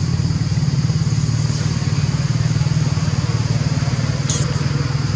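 A small engine running steadily at idle: a low, even drone with a fast pulse. A thin, steady high buzz sits above it, and a short high chirp comes about four seconds in.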